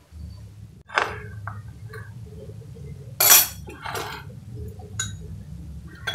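A metal spoon and kitchen knife clinking against a glass bowl as they are handled, about four separate clinks, the loudest about three seconds in.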